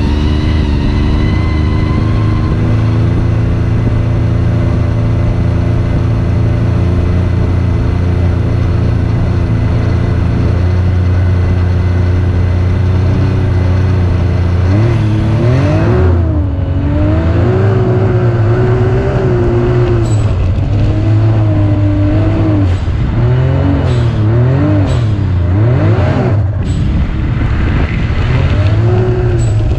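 Can-Am ATV engine running at a steady pitch while cruising on sand. About halfway in it starts revving up and down repeatedly as it climbs the dune.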